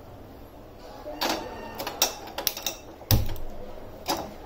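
A gas stove burner being switched on and lit, giving a run of sharp clicks and knocks, about six in all. The heaviest is a knock with a low thud about three seconds in.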